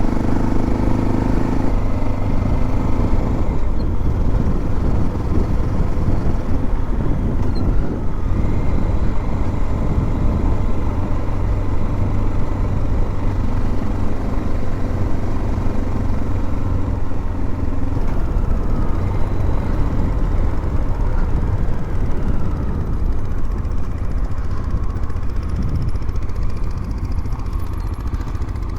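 Motorcycle engine running steadily under way, its note shifting slightly a couple of times.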